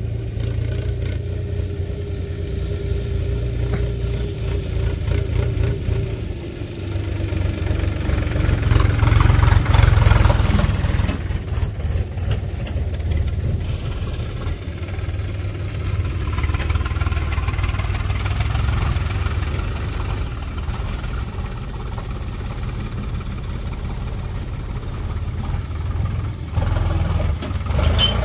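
Tractor diesel engines running as a tractor drives across loose dirt. The engine note falls slowly over the first ten seconds, and the sound is loudest about ten seconds in as the tractor comes close.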